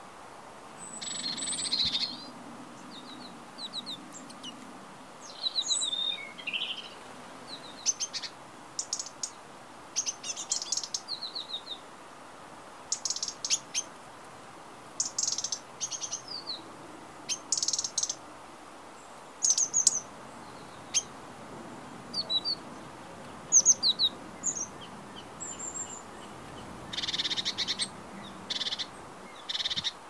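Small songbird singing: short, high chirps and twittering trills in quick phrases, repeated every second or so.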